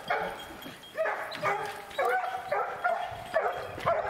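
Bear hounds barking in quick succession, about two barks a second.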